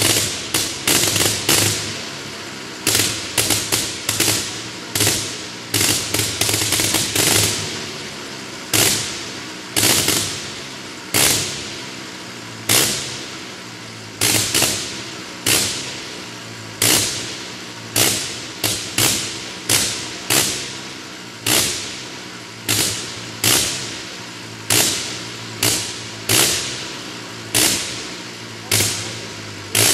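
Gnome rotary aero engine running with its propeller turning: a steady low drone broken by loud, sharp bangs about once a second, irregularly spaced and sometimes coming in quick runs.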